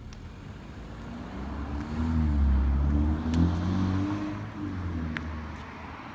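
A motor vehicle drives past, its engine and tyre noise rising to a peak about two to three seconds in and then fading away.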